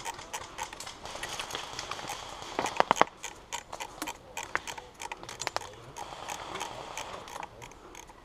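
Footsteps on a woodland dirt path, an irregular series of crunches and clicks, with a quick run of three sharper, louder clicks about three seconds in.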